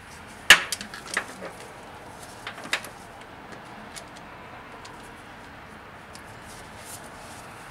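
A sharp click about half a second in, then a few lighter clicks and knocks, as hand tools are handled against metal in a car's engine bay.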